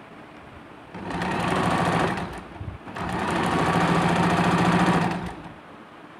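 Sewing machine stitching machine embroidery on a handkerchief in two runs. It starts about a second in, pauses briefly, runs again for a little over two seconds, and stops about five seconds in.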